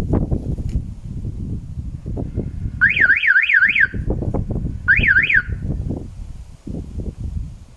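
Electronic warbling alarm tone from a Scare Guard inflatable bird-scaring mannequin's sound mode, fast up-and-down sweeps in two short bursts about three and five seconds in. A continuous low rumbling, flapping noise runs underneath.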